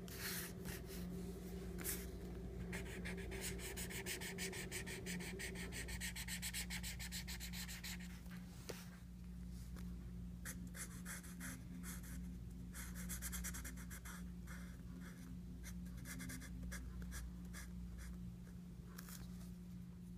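Felt-tip markers rubbing across a paper sticker label: a run of fast back-and-forth colouring strokes for the first several seconds, then shorter, scattered strokes. A steady low hum lies underneath.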